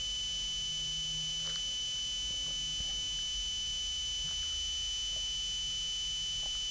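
Steady high-pitched electrical whine with a low hum underneath, unchanging throughout, with a few faint small clicks.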